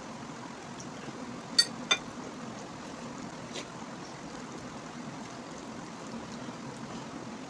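Mukbang eating sounds: hands squishing and mixing rice with kadhi on plates, and chewing, over a steady background hiss. About a second and a half in, two sharp clicks with a short ring sound about a third of a second apart, as fingers tap against a plate.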